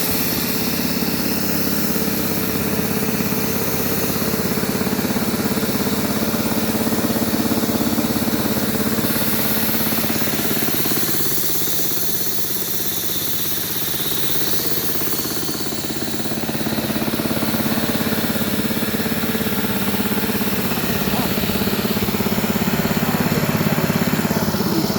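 Outdoor air conditioning unit running: a loud, steady mechanical hum with a broad rushing noise, easing slightly about halfway through.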